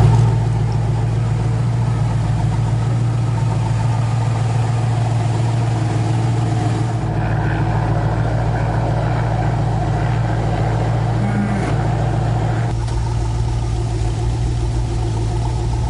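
The Tumbler Batmobile's V8 engine running steadily, a loud, even engine note that holds its pitch throughout.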